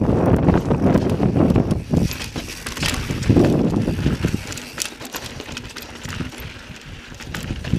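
Mountain bike riding over sandstone slickrock: knobby tyres rolling and the bike knocking and rattling over ledges and bumps in an uneven rhythm. It quiets somewhat about halfway through as the ride smooths out.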